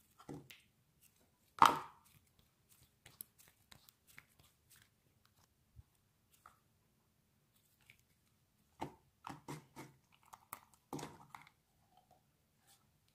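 Butter slime being stretched and squeezed by hand: scattered short sticky pops and crackles, the loudest a sharp snap near two seconds in, and a cluster of them near the end.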